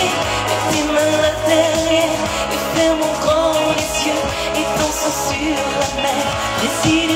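A woman singing a pop song live into a microphone, her voice held on long notes with vibrato, over an instrumental with a steady bass line and drum beat.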